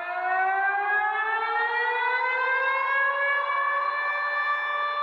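Civil-defence warning siren winding up, its tone rising in pitch for the first three seconds or so and then holding a steady wail, sounded as an emergency alert alarm.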